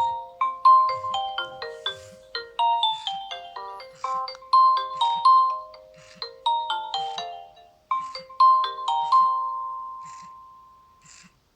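Nokia N70 ringtone melody: a quick run of short pitched notes that ends in one long held note fading out.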